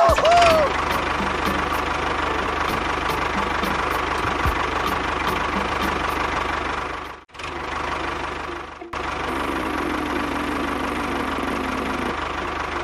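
Small engine running steadily with a fast knocking rhythm, cutting out briefly twice about halfway through.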